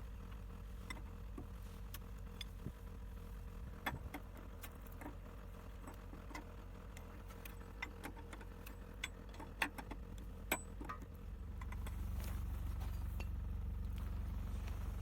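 DT-75 crawler tractor's diesel engine idling steadily, louder from about three-quarters of the way through. Scattered light metallic clicks and clinks sound over it.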